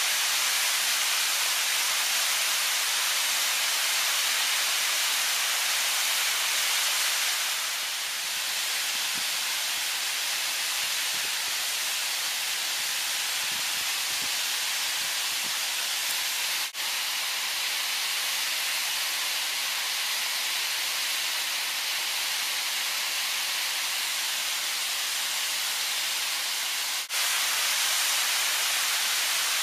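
Steady rushing hiss of a waterfall pouring over rock slabs in white water. It dips out briefly twice, a little past halfway and near the end.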